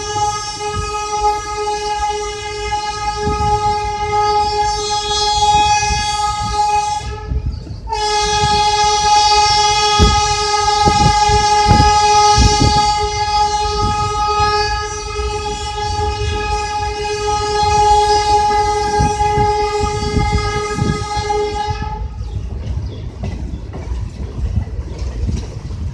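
Indian Railways train horn held in two long steady blasts, the first breaking off about seven seconds in and the second, about fourteen seconds long, starting a moment later. Beneath it and after it, the coaches' wheels clatter and thud over rail joints and points as the passenger train rolls slowly along.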